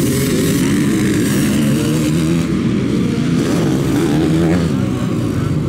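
Motocross dirt bike engines revving hard as the bikes climb past one after another, the pitch rising and falling with the throttle and gear changes.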